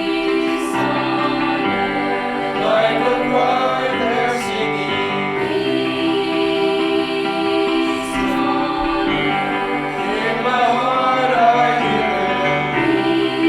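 A choir singing a slow passage in harmony, with held chords that change every few seconds.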